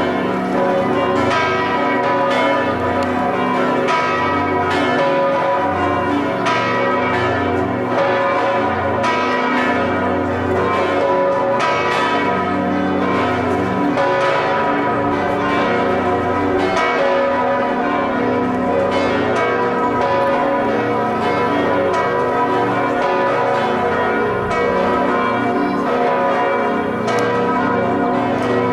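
Full plenum of the six swinging bells of Chartres cathedral, rung in volée together, reconstructed since only four of the six can currently swing. The strikes overlap irregularly into a dense, steady wash of ringing.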